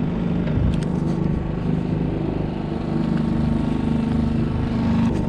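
Small outboard motor of a Catalina 22 sailboat running steadily at a low, even hum, with a light knock about a second in.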